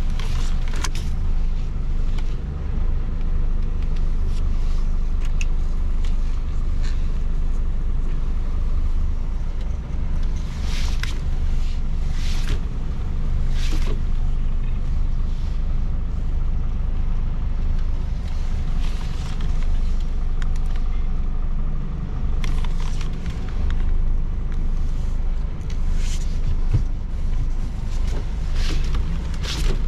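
DAF XF truck's diesel engine droning steadily under way, with short sharp sounds now and then.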